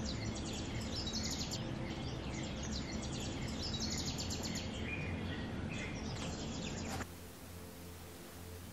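Small birds chirping and trilling in quick runs over steady background noise. It cuts off abruptly about seven seconds in, leaving only a faint hiss.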